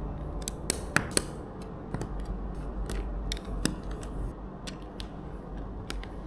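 Lego plastic bricks being handled and pressed together: irregular sharp clicks, a few louder snaps in the first second and a half and again around the middle.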